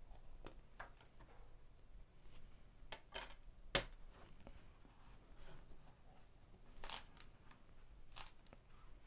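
Faint handling of a mediabook and its DVD: soft rustles and light scrapes, with one sharp click nearly four seconds in and brief rustles near the end.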